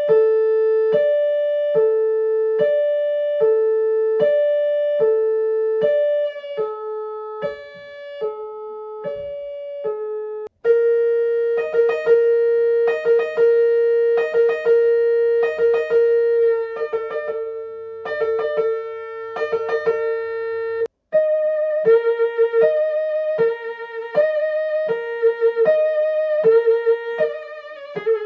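Ambulance siren note patterns played on a keyboard, in three sections. First a steady two-note high-low alternation of about one note a second; after a short break about ten seconds in, a held note under repeated higher notes; after another break about twenty seconds in, a quicker two-note alternation.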